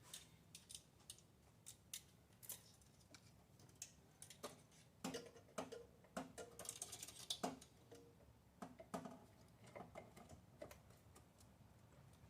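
Faint, irregular clicks and light taps of spark plug wires and their plastic boots being handled, a few of them with a short ring.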